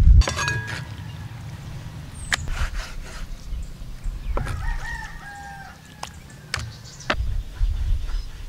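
A rooster crowing twice, once just after the start and again about halfway through, over sharp knocks of a knife striking a wooden cutting board as it cuts through raw chicken breast.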